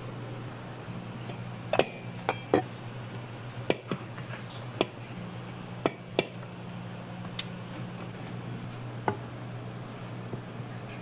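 Utensils and dishes clinking and knocking in irregular sharp clicks, about a dozen, over a steady low machine hum.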